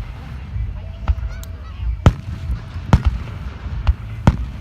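Fireworks exploding: three sharp bangs in the second half, about a second apart, over a steady low rumble. A short honk is heard about a second in.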